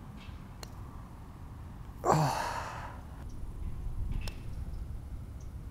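A man lets out one long breathy sigh about two seconds in, over a low background rumble with a few faint clicks.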